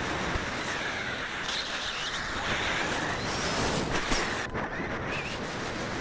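Rush of air over the microphone of a camera strapped to a falcon's head in high-speed flight: a steady wind noise that holds at one level throughout.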